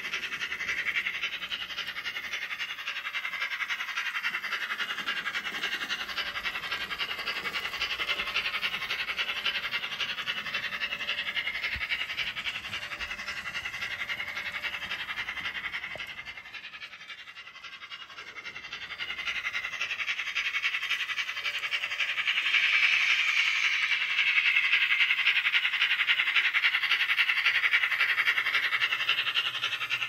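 Sound-fitted N gauge model of an A4 steam locomotive, its onboard speaker playing a continuous chuffing as it runs, thin and hissy as from a tiny speaker. The sound drops away for a couple of seconds about sixteen seconds in, then comes back louder for the last third.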